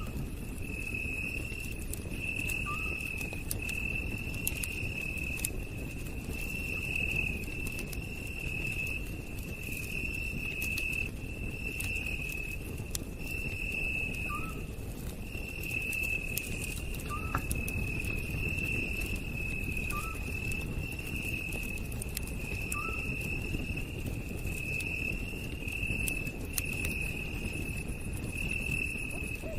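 Night insects chirping in a steady pulsing trill, about one pulse a second, over a campfire's low rustle and scattered crackles.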